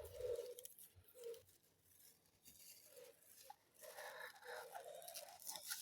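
Near silence: room tone with a few faint, scattered rustles and soft taps from handling ginger and a pear at a table.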